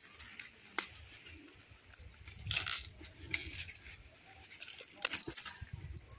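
Hands pulling up and handling taro plants in the soil: scattered rustles, scrapes and snaps of stalks, leaves and dirt. The loudest come about two and a half seconds in and again just after five seconds.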